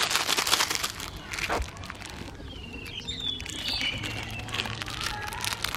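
Scuffing and rustling noises for about the first second, then scattered short, high chirping calls around the middle, with a faint low hum near the end.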